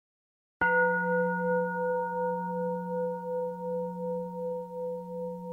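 A single strike of a singing bowl about half a second in, out of silence, then ringing on with a slow, wavering decay.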